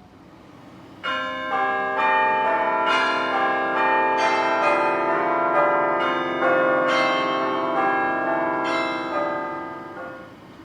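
Bell chimes ringing a run of overlapping struck notes, each note ringing on under the next, starting about a second in and fading away near the end.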